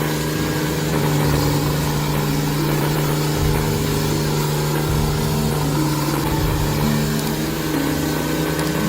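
Diesel engine of a heavy wood-processing machine running steadily, with a constant low hum and shifting higher tones.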